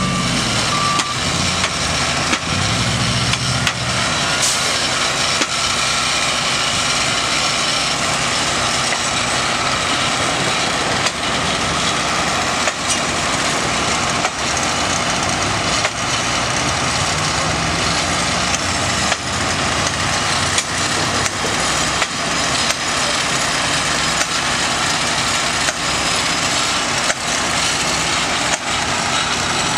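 Track-maintenance machinery engines running steadily, with sharp knocks every second or two from hand tools striking the track.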